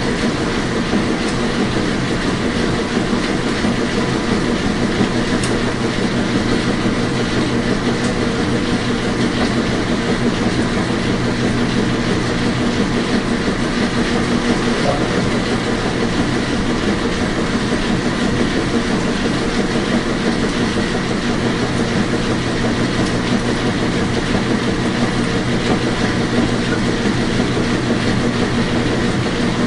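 Washing machine running, a loud steady hum and rumble that does not change.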